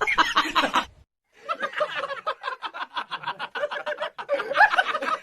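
A person laughing in a long run of quick, rapid-fire giggles, after a short bit of voice and a brief break about a second in.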